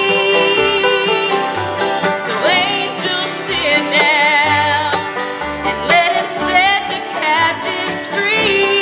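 A live acoustic bluegrass band playing: banjo, mandolin, acoustic guitar and upright bass, with a woman singing held notes with vibrato.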